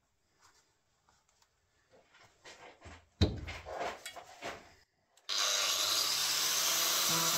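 Knocks and rustling as an angle grinder is handled and positioned, with one sharp knock about three seconds in. A little past halfway an angle grinder starts cutting into the rusted sheet steel of the car's rear shock top, a sudden steady, harsh grinding noise.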